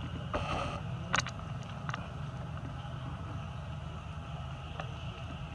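Steady low outdoor rumble with a brief hiss about half a second in and a few short, sharp clicks.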